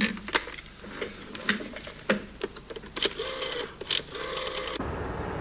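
Irregular mechanical clicks and knocks, with a short buzzing tone about three seconds in, then an abrupt change near the end to a steady low rumble.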